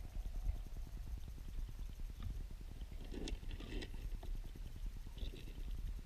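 River water heard underwater in a weirpool: a steady low rumble made of dense, rapid crackling, with a few brief clicks and taps about three to four seconds in.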